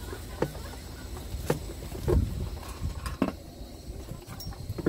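Drink cans and tableware being handled on a wooden camp table: a few sharp clicks and a heavier knock about two seconds in, over a low rumble.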